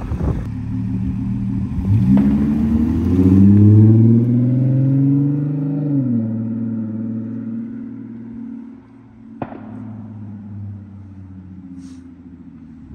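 2012 Audi A7's supercharged V6 pulling away and accelerating, its note rising for a few seconds, then dropping as it eases off and fading down the street. A single sharp bang about nine and a half seconds in.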